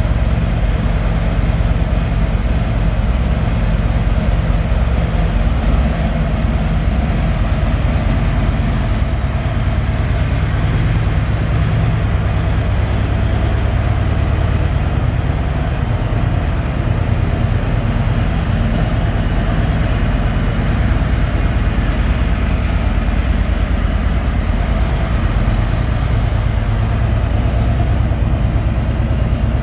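Harley-Davidson Road King Police's 107 cubic inch Milwaukee-Eight V-twin idling steadily through Screamin' Eagle slip-on mufflers.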